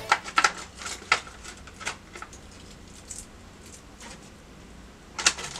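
Clicks, taps and light rattling of a clear plastic display case being handled and opened to take out a die-cast model car, several in the first two seconds and another cluster near the end.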